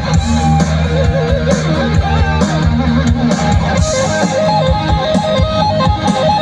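Live band played through a PA: an amplified guitar plays a melody with bends and vibrato over a low bass line and drum hits.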